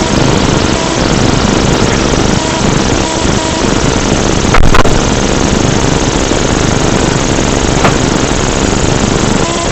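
Car engine and road noise picked up by a cheap dashcam's built-in microphone: a steady, loud, muddy drone with poor sound quality. A brief louder bump comes about four and a half seconds in, and a faint click near eight seconds.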